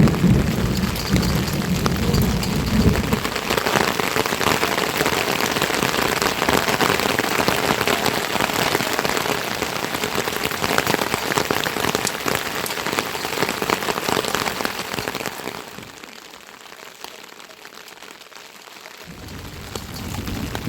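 Steady heavy rain falling, a dense even hiss, with a low rumble in the first few seconds. The rain grows quieter for a few seconds near the end, then picks up again.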